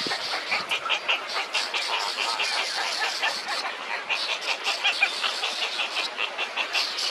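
Bird chirping: quick runs of short, high chirps, several a second, with a couple of brief pauses, over a steady high hiss.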